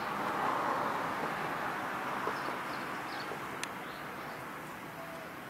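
Steady outdoor background noise that slowly fades, with a few faint bird chirps and a single sharp tick partway through.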